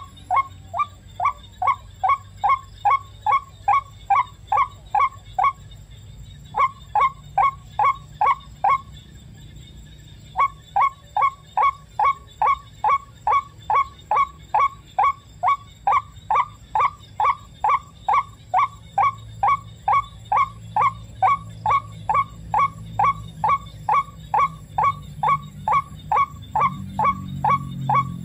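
White-breasted waterhen calling: a monotonous 'kwak' note repeated about two to three times a second, with two short breaks partway through.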